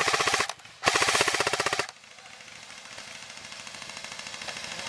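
Airsoft electric rifle firing on full auto, a rapid even rattle of shots. One burst cuts off about half a second in, and a second burst of about a second follows just under a second in.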